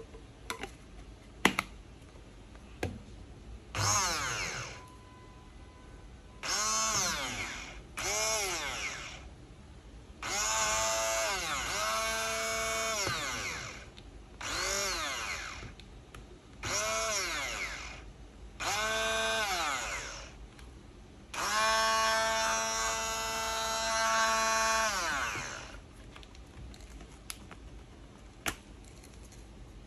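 Braun hand blender's motor switched on and off about eight times in short runs of one to four seconds, each a whine that rises in pitch as the motor spins up and falls as it winds down. A few short clicks sound between the runs.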